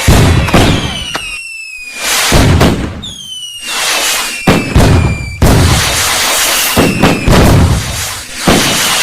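Fireworks going off: whistles that fall in pitch and a string of loud bangs, each with a crackling, hissing tail, about every one to two seconds.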